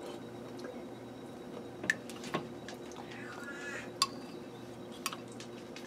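Metal spoon clinking and scraping against a ceramic bowl as it cuts into a cooked stuffed bell pepper: about four sharp clinks, over a faint steady hum.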